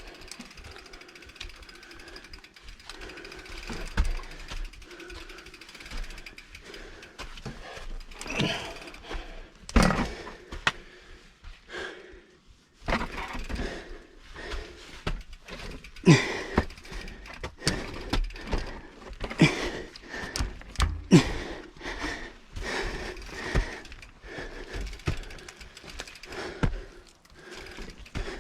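Mountain bike rattling and clattering over rough trail, with irregular knocks from the frame, chain and wheels and several sharper, louder knocks from about a third of the way in.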